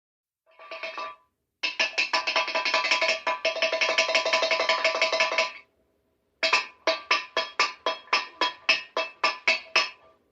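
Metal cup banged against steel prison bars, making ringing metallic clangs. After a short opening rattle, the cup is run rapidly along the bars for about four seconds, then after a brief pause it strikes them one at a time, about four times a second.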